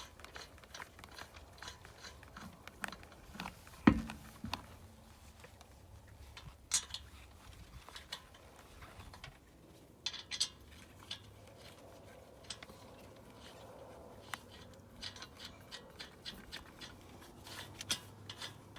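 Lug nuts being turned by hand onto a car wheel's studs: a string of small metallic clicks and scrapes, with one much louder clunk about four seconds in.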